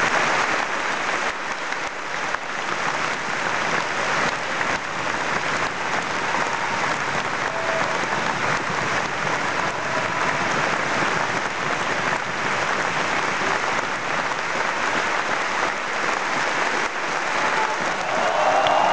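Large opera-house audience applauding steadily during the curtain call, a dense, continuous clapping.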